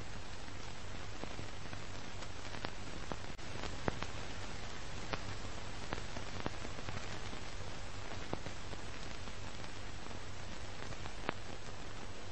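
Steady hiss over a low hum, with scattered crackling clicks every second or two.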